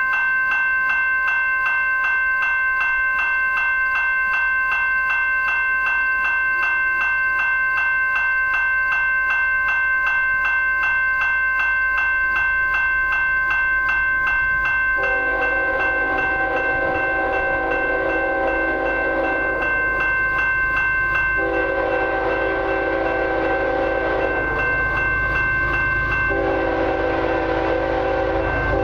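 Railway level-crossing bell dinging rapidly and steadily. About halfway through, the approaching lead locomotive's air horn joins in, a multi-note chord sounded in several long blasts for the crossing, over the growing low rumble of the oncoming train.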